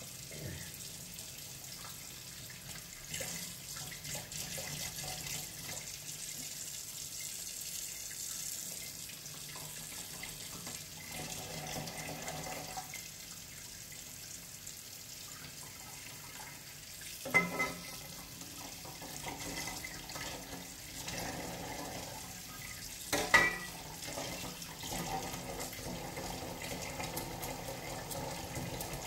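Kitchen tap running into a sink as a milkfish is rinsed and cleaned under the water. Two sharp knocks stand out, one a little past the middle and one about three-quarters through.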